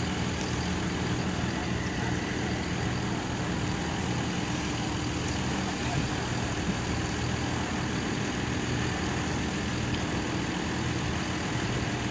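Diesel engine of a Ferrari reach stacker running steadily with its load held on the boom.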